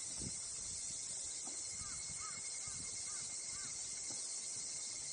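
Steady high-pitched drone of insects, with a bird giving a run of about five short, arched calls about two seconds in.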